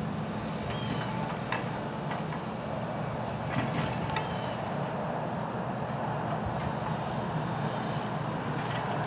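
Grapple truck's diesel engine running steadily while the crane works, with a few light knocks.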